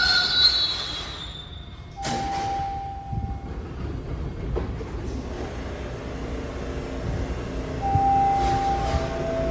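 TTC Bombardier T1 subway train at the platform: a high squeal fades out in the first second, then a steady low rumble. A single chime tone sounds about two seconds in, and near the end a chime of falling notes begins.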